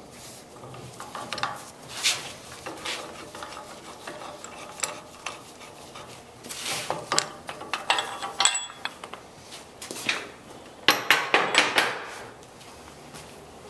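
Metal clinks and clanks of a C-frame ball joint press and its adapter cups being handled and taken off a steering knuckle, with a quick run of ringing clinks near the end.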